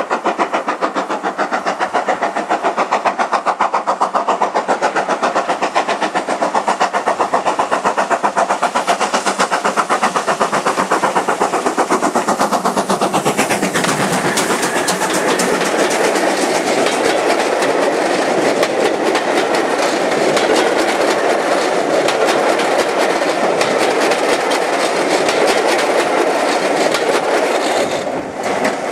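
Steam train running, with rapid, even exhaust beats from a working steam locomotive. About 13 seconds in these give way to a steady rush as another train passes close on the adjacent track: GWR 'Hall' class 4-6-0 No. 4953 and its coaches.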